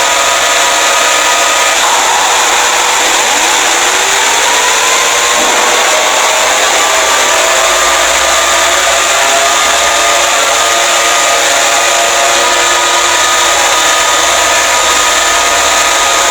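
Emergency Alert System-style alarm audio, very loud and harsh. A wall of noise carries several steady held tones, with slow tones sliding up and down through it.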